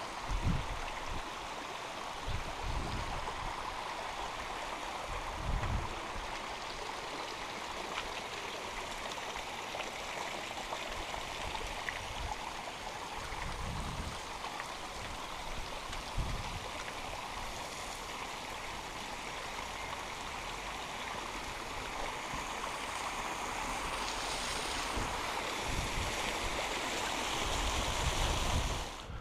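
Steady rush of flowing water from a mountain stream or waterfall, with a few short low thumps scattered through it.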